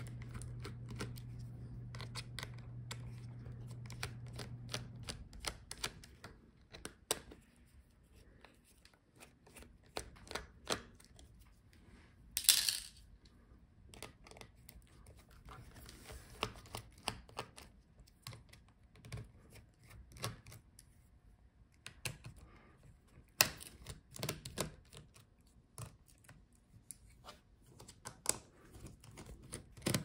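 Precision screwdriver turning out small screws from a laptop's motherboard and chassis: a string of light clicks and ticks from the bit in the screw heads, with a short rasp about twelve seconds in. A low hum runs underneath and stops about five seconds in.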